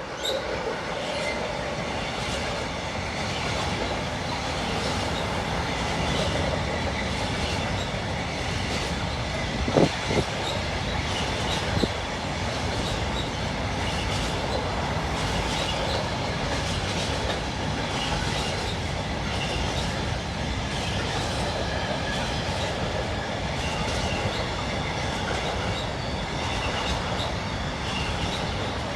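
Freight train rolling past with a steady rumble of wagons on the rails and a thin high squeal from the wheels. A couple of sharp clanks about ten and twelve seconds in.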